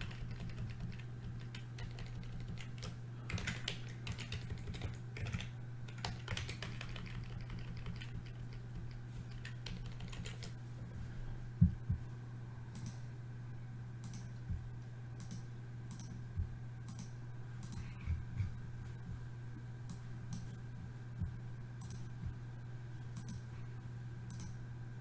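Computer keyboard keys and mouse clicks while a spreadsheet list is cut, pasted, sorted and scrolled. There is a burst of key presses in the first half, then sparser single clicks about once a second, over a steady low hum.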